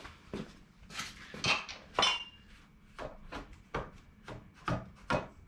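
Sharp metallic clinks and taps, about a dozen at uneven spacing, some ringing briefly, the loudest about one and a half and two seconds in: a wrench and bolts knocking against a turbocharger as it is fitted and bolted onto a Detroit Diesel 6-71 engine.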